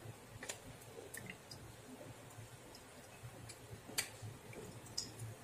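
Steel ladle pressing and scraping the browned milk solids left from making ghee inside a metal tea strainer, giving faint scrapes and a few light metal clicks. The loudest click comes about four seconds in.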